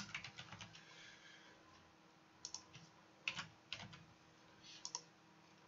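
Faint computer keyboard typing: a quick run of keystrokes at the start, then a few scattered keystrokes in small groups.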